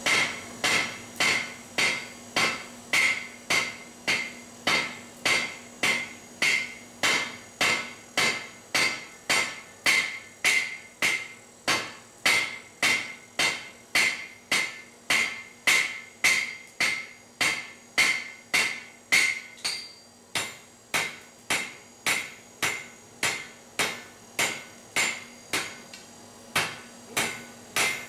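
Blacksmith's hand hammer striking hot steel on an anvil in a steady rhythm, about two blows a second, drawing out a long taper. The blows ring at first, and the ring drops away about two-thirds of the way through while the blows carry on.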